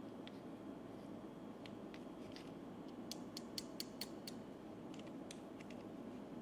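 Metal camera clamp and articulated arm being handled, giving small scattered mechanical clicks and creaks, with a quick run of about six sharp clicks around three to four seconds in, over a steady low hum.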